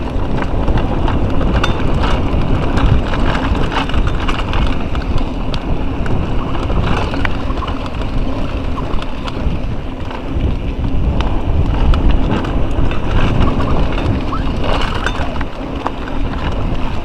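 Mountain bike riding fast down a rough dirt single track, heard from an action camera on the bike: a steady rumble of wind on the microphone and tyres on the trail, with constant rattling and knocking from the bike over the bumps.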